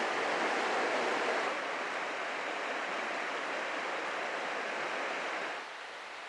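Rushing water of a rocky trout river's rapids and riffles: a steady hiss that steps down in level about a second and a half in and again near the end.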